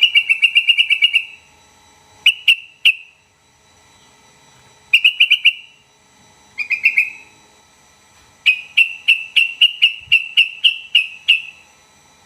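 Sooty-headed bulbul (trucukan) calling in bright chattering phrases of quickly repeated notes, five phrases with short gaps between them, the last and longest a run of about a dozen notes.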